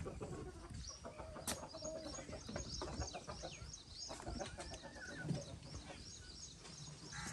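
Chickens clucking, with many short high chirps repeating throughout and a single sharp click about a second and a half in.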